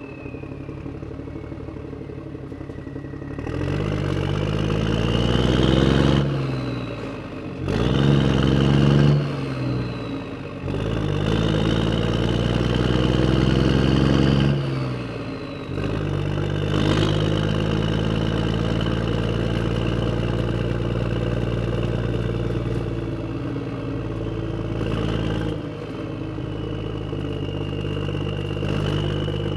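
Motor vehicle engine revving up three times in a row, its pitch climbing and then dropping back each time, then running at a steady lower pitch for the second half.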